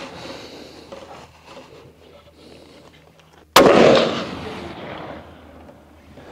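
A single rifle shot from a Howa 1500 Superlite bolt-action hunting rifle, about three and a half seconds in, with an echo that dies away over a second or more.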